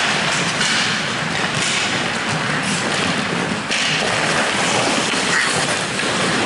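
Ice hockey play in an arena: a steady wash of skate and stick noise on the ice with thuds, echoing in the rink.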